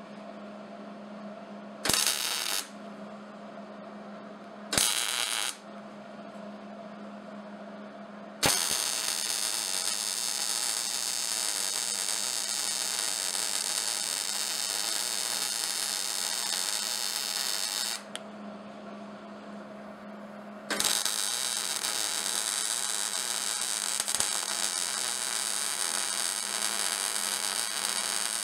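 MIG welder arc on mild steel: two short tack welds about 2 and 5 seconds in, then two long, steady weld passes of about ten seconds each. A steady hum runs underneath.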